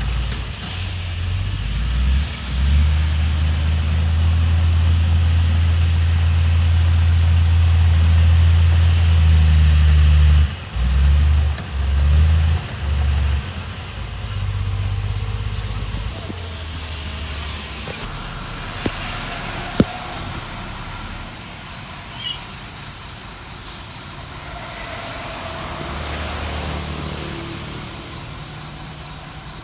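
Heavy diesel engine of earthmoving machinery running loud and steady for about ten seconds, then cutting in and out in a few short surges before settling to a quieter run. One sharp click sounds about two-thirds of the way in.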